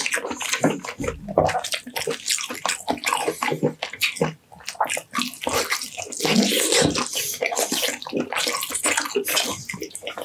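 Close-miked eating of roast meat off the bone: wet chewing, lip smacking and dense clicking mouth noises as the meat is bitten and chewed.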